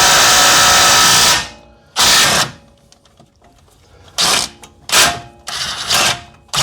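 Power tool run in bursts: one steady run of about a second and a half, then four or five short bursts, working fasteners on a car's lower control arm.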